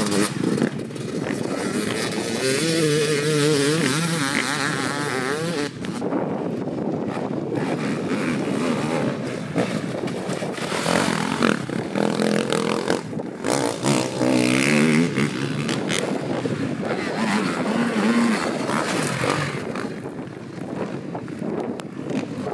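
Enduro dirt bike engines revving hard as several bikes ride past one after another, the pitch climbing and dropping again and again as the riders open and close the throttle.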